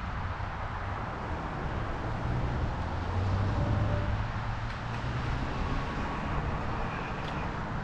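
Steady rumble of road traffic mixed with wind noise, heard from a bicycle riding along a busy road; it grows louder for a moment about three to four seconds in.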